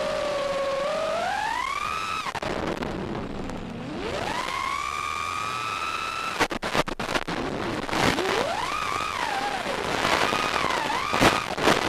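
A loud pitched tone with overtones, sliding slowly up and down in pitch, broken by a short run of sharp crackles about six and a half seconds in and again near the end.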